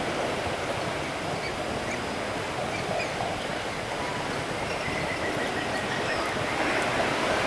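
Steady outdoor rushing noise with no clear rhythm, with a faint thin tone about two-thirds of the way through.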